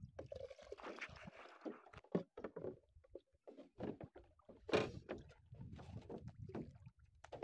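Scattered small knocks, taps and water splashes from fishing gear being handled on a wooden boat, with one sharper knock a little under five seconds in.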